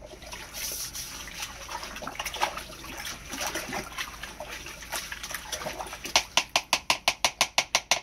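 Water sloshing and splashing in a sump pit as it is stirred by hand and with a toilet brush, to work iron-removing powder through the iron ochre. Near the end it turns into quick, even scrubbing strokes, about six a second.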